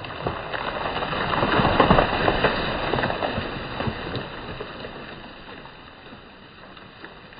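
A hinge-cut ash tree's crown coming down through brush and branches: a rush of crackling, snapping twigs and rustling leaves that swells to a peak about two seconds in and then dies away.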